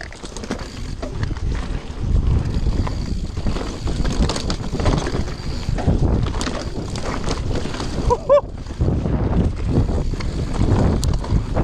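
Mountain bike riding fast down a dirt singletrack: tyres rumbling over the trail, the bike rattling and knocking over bumps, and wind buffeting the helmet camera's microphone. About eight seconds in there is a brief pitched squeak.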